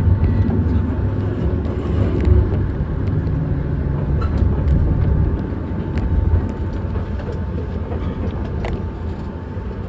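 Enoshima Electric Railway train running, heard from inside the driver's cab: a steady low rumble of wheels and motors on the track with scattered clicks, easing off a little near the end.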